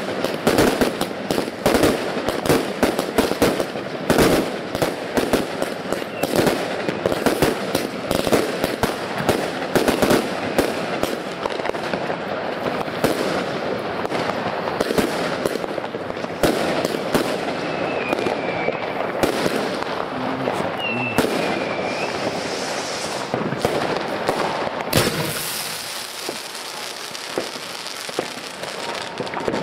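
Small consumer fireworks cakes going off: a dense, rapid stream of bangs and crackling that thins out in the last few seconds, with one sharp bang near the end and a couple of faint whistles partway through.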